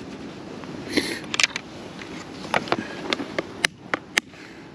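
Sharp clicks and small rattles from fishing tackle being handled: a hard plastic lure being unclipped from the line and a clear plastic tackle box being opened. There is a quick cluster of clicks about a second in, then several single clicks spaced through the rest.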